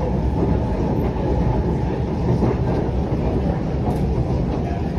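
Alstom Movia R151 MRT train heard from inside the car while running at speed: a steady low rumble of wheels on rail.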